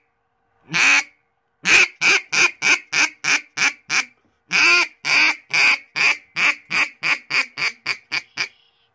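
Hobo Prime Meat duck call blown in quacks: one single quack, then two runs of quacks that come quicker and get shorter and fainter toward the end of each run.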